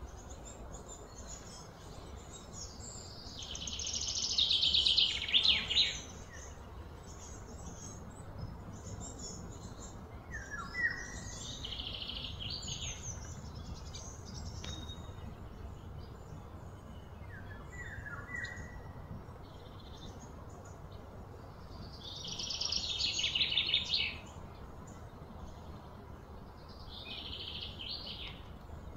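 High-pitched outdoor animal calls. A loud, rapidly pulsing buzzy trill swells for a couple of seconds and stops, once a few seconds in and again about two-thirds of the way through. Short high chirps that fall in pitch come in between.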